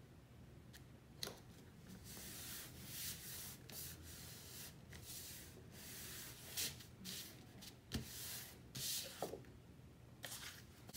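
Hands rubbing and smoothing patterned paper down onto cardstock: several strokes of dry paper-on-paper rubbing, with a few light taps in between.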